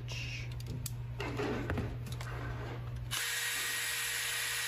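Cordless drill-driver starting about three seconds in and running with a steady whine as it drives a 25 mm screw through the plastic blaster shell into a hex nut. Before it, light clicks of parts being handled.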